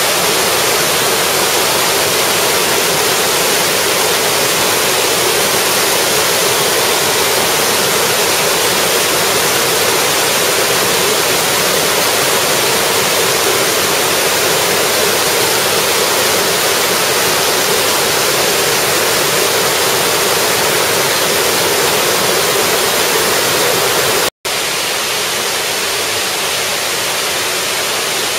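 Steady rush of a multi-tiered cascade waterfall, water tumbling over rocks. Near the end the sound cuts out for an instant and resumes slightly quieter.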